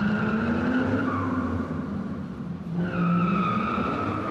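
Taped-up paper mailer package being torn open by hand, the packing tape peeling off with a long squealing screech in two pulls, the second starting about three seconds in.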